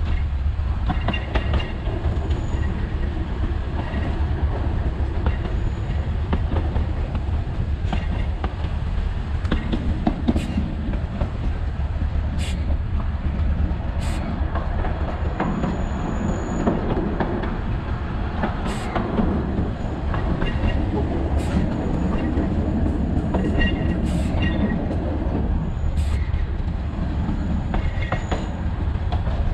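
Alishan Forest Railway train running on the line: a steady low rumble, sharp clacks from the rail joints every second or two, and faint high wheel squeals now and then.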